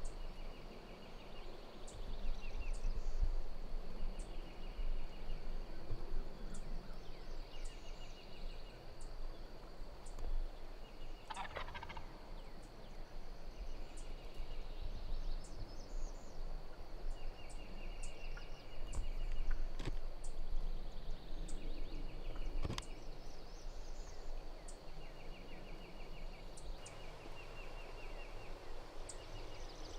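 Wild Osceola turkey gobbling again and again, each gobble a rattling call about a second long, with one louder gobble about eleven seconds in.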